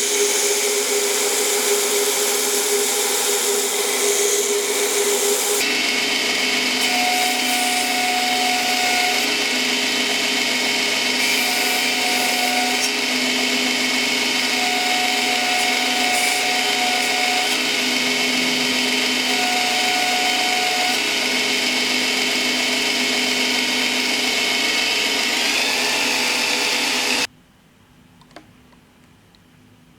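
A motor-driven machine running steadily with a loud, even whine and hum. Its sound changes once about five seconds in, then cuts off suddenly near the end, leaving faint room noise and a single click.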